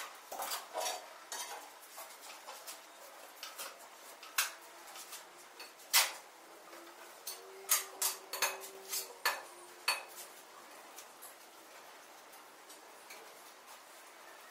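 Tile setter's trowel clinking, tapping and scraping on a ceramic floor tile and its mortar bed as the tile is laid: irregular sharp knocks, the loudest about six seconds in, a quick run of taps around eight to ten seconds, then fewer and fainter ones.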